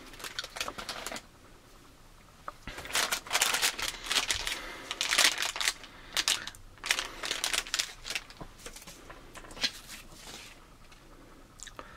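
Plastic snack packaging crinkling and rustling as it is handled, in irregular bursts of crackle with a short lull about two seconds in and sparser crackles near the end.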